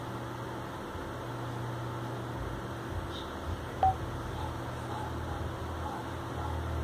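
A single short electronic beep about four seconds in, confirming that the Bluetooth pairing is complete, over a low steady hum.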